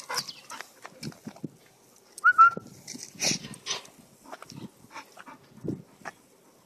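English bull terrier moving about close by, with scattered sniffing, breathing and scuffing noises and one short, high whine about two seconds in.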